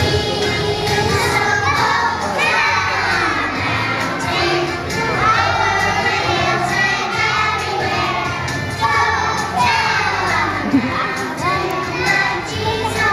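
A group of young children singing together over musical accompaniment.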